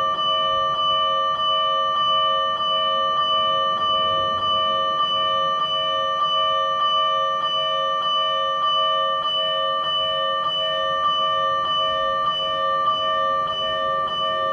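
Fire-engine electronic alarm bell (keishō) from a siren amplifier, struck in a steady, even rhythm of about one and a half strikes a second. Each strike rings with the same bright, metallic set of tones, and the ring carries on between strikes.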